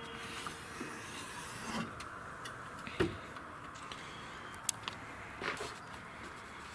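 Rubbing and handling noise, with a few scattered clicks and knocks over a steady hiss.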